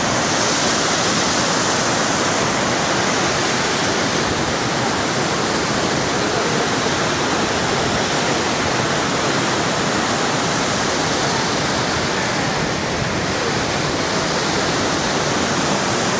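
Waterfall in the Pöllat Gorge, a steady loud rush of falling water that does not let up.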